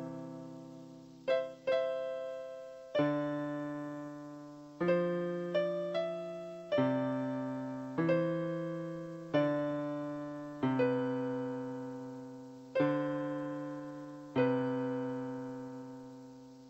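Background music: slow, soft piano chords struck every second or two, each left to ring and die away, the last fading out near the end.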